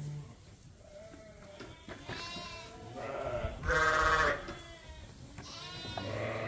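Lambs bleating: several separate wavering bleats one after another, the loudest about four seconds in.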